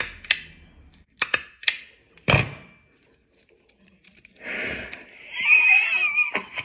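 Small stapler clicking several times as it is pressed through a paper tea bag, the heaviest a solid clack about two seconds in. After a pause comes a rustling hiss with a wavering high tone near the end.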